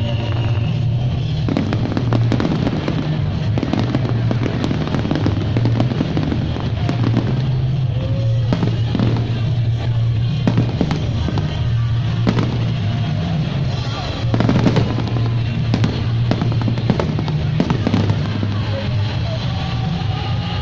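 Fireworks display: repeated shell bursts and crackling reports throughout, with music playing underneath.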